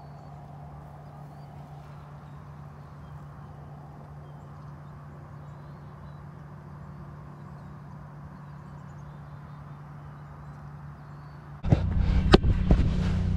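Quiet outdoor background with a low steady hum and a few faint high chirps. About twelve seconds in it cuts suddenly to loud noisy rumble on a first-person goalkeeper camera, with several sharp thuds of a football being struck and hitting goalkeeper gloves.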